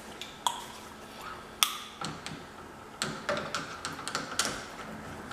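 Sharp metallic clicks and taps of deadbolt lock hardware being handled as its mounting screws are started through the door, a few loud clicks spread out with a run of quicker small ticks in the second half.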